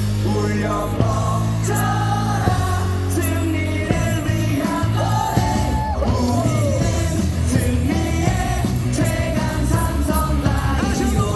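Huge stadium crowd of baseball fans singing a cheer song in unison, with shouts, over loud amplified cheer music with a heavy bass line.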